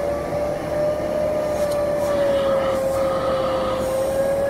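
Upholstery-cleaning vacuum running with a steady whine, its hand nozzle sucking along the fabric of a car door panel.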